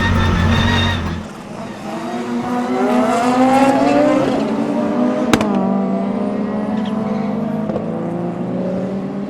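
Audi 200 quattro race car's turbocharged five-cylinder engine accelerating, its note rising for a few seconds. A single sharp crack comes about five seconds in, and then a steadier engine note.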